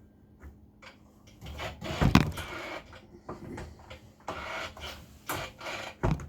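Handling noises: irregular knocks, clatter and rustling, with a loud thump about two seconds in and another sharp knock near the end. The saw is not running.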